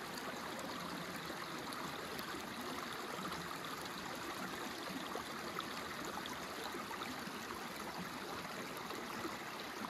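Shallow stream trickling steadily over rocks, an even rush of running water.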